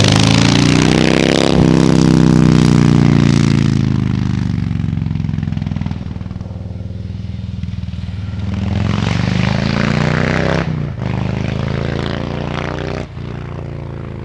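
Harley-Davidson Heritage Classic 114's V-twin engine running as the motorcycle rides by. The engine note rises, falls away slowly, rises again, then drops abruptly twice near the end.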